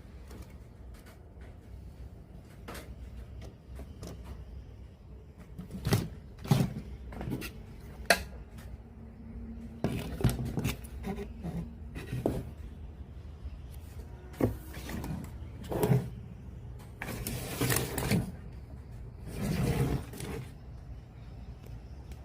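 Irregular clicks, knocks and scraping of hands working on a radio cassette player and handling its parts and tools, over a low steady hum. The loudest knocks fall about six, eight and sixteen seconds in.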